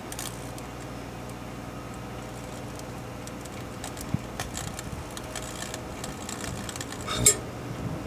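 Microwave oven running with a steady hum while a Casio pocket LCD TV cooks inside, smoking. From about halfway there is a scatter of sharp crackles and clicks from the burning set, with one loud pop near the end.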